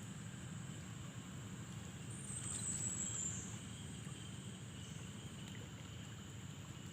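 Steady, high-pitched chirring of insects from the surrounding fields, swelling louder for a second or so near the middle, over a low, even background rumble.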